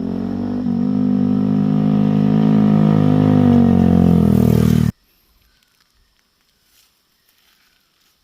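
A loud engine-like drone, its pitch creeping slowly upward, that cuts off abruptly about five seconds in, leaving near silence with a few faint ticks.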